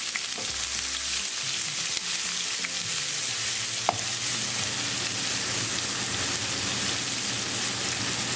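Chopped onion, ginger and cumin seeds sizzling steadily in hot oil in a frying pan as a wooden spatula stirs them, with one sharp tick about four seconds in.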